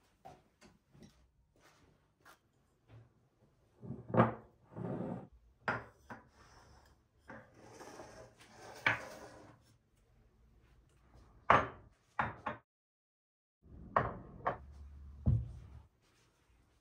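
Faint clicks at first, then a series of separate light knocks and clatters as wooden bowls and glass dishes are set down on a kitchen countertop.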